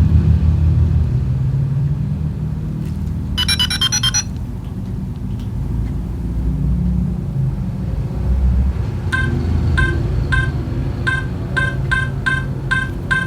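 Digivice 25th-anniversary toy giving electronic beeps: a quick rapid run of beeps about three and a half seconds in, then a steady series of short single beeps a little over two a second from about nine seconds in. A low steady rumble lies underneath.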